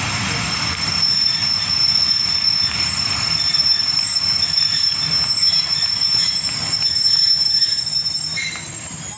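Passenger train slowing to a stop, heard from an open coach window: a steady high squeal from the braking wheels over a low rolling rumble. The squeal cuts off shortly before the end as the train halts, and the rumble fades.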